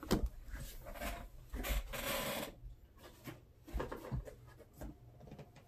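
Handling noise: clicks and light knocks of a phone being set down and touched on a tabletop, with a longer stretch of rustling about two seconds in.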